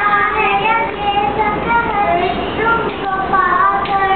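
Young girls singing a song together, holding and gliding between sustained notes.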